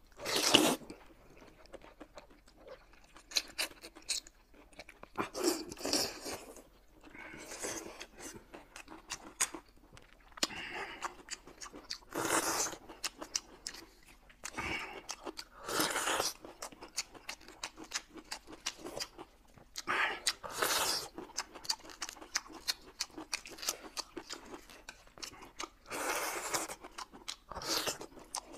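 Close-miked eating sounds: loud noodle slurps of sesame-paste liangpi, each lasting up to about a second and coming every couple of seconds, with chewing and wet mouth clicks in between.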